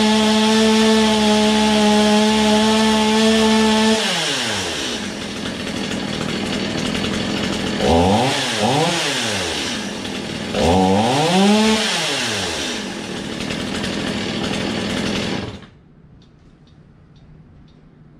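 Stihl chainsaw's two-stroke engine held at high revs for about four seconds, dropped back to idle, then revved up and down twice. It idles until it cuts off suddenly about three seconds before the end. The saw is a little doggy coming off idle.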